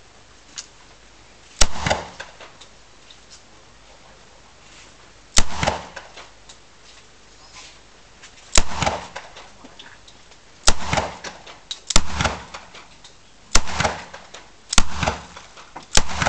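9mm pistol fired eight times in single shots, spaced three to four seconds apart at first and then about a second apart near the end. Each sharp crack is followed by a short echoing tail.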